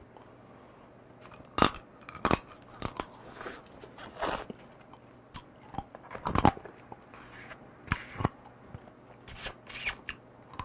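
Close-miked chewing of soy-marinated stone crab: about a dozen irregular sharp cracks and crunches as the hard shell is bitten, loudest about two seconds in and again past six seconds.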